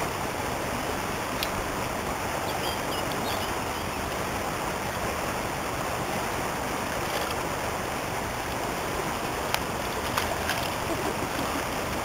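Shallow river water flowing steadily, a constant rushing hiss, with a few short faint clicks.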